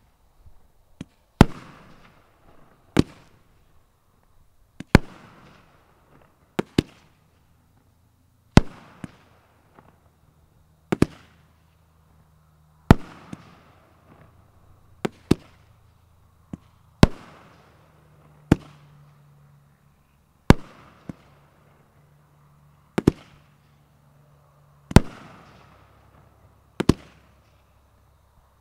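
A 500-gram aerial fireworks cake (Saturday Night Special) firing its shots one after another, a sharp bang about every two seconds, each trailing off in a brief fading crackle.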